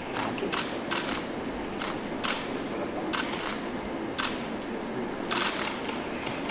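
Camera shutters clicking in quick, irregular bursts, several clicks in a row at a time, over a steady low room hum.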